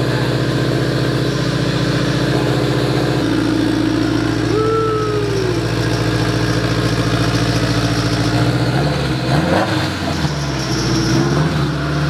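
A car's four-cylinder engine idling steadily. Its tone shifts slightly about 3 seconds in and again near 9 seconds, and a brief rising-and-falling tone sounds about 4.5 seconds in.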